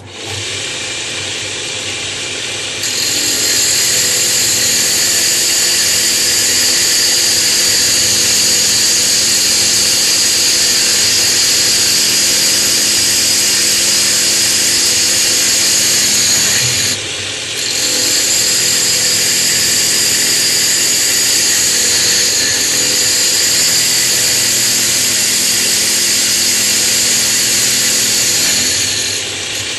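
A power tool switched on, its spinning bit milling a natural stone tile down in thickness. It starts suddenly, grows louder about three seconds in as the cut takes hold, and runs steadily, with brief drops at about 17 seconds and again near the end.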